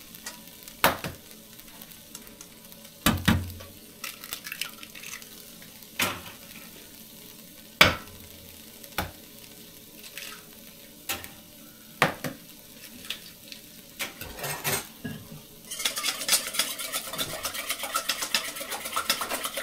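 Utensils knocking and clinking against dishes, a sharp knock every second or two. About three-quarters of the way in, loud crackling sizzle starts as food goes onto the hot Blackstone griddle.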